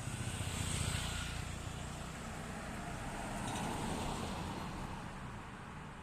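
Distant engine rumble with hiss, swelling about a second in and again around four seconds, then fading.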